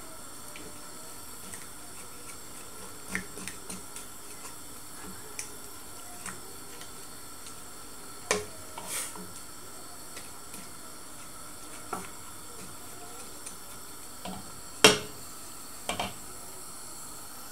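A wooden spoon stirring leafy greens in a stainless steel pot of simmering water, knocking now and then against the pot, loudest about 8 seconds in and again about 15 seconds in. A steady low hiss runs underneath.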